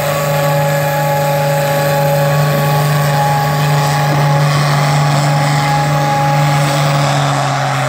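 Oliver farm tractor's engine running hard under load while pulling a weight-transfer sled, holding a loud, steady note.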